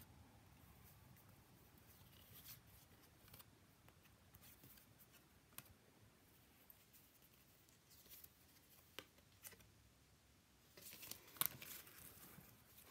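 Faint clicks and rustles of tarot cards being handled and slid one behind another, with a short cluster of sharper ticks near the end.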